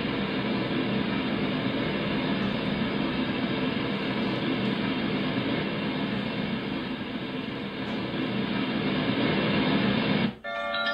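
A dragon-egg star projector's built-in speaker playing one of its white-noise sounds: a steady noise with a faint low drone in it. It cuts off about ten seconds in, and a chiming melody starts just after.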